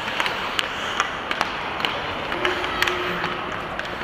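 Ice hockey sticks clacking against each other and the puck in a scramble along the boards: a dozen or so sharp, irregular clacks over the steady hiss of skates on the ice.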